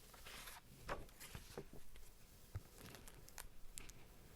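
Faint scattered rustles and small clicks of a paper picture book being handled.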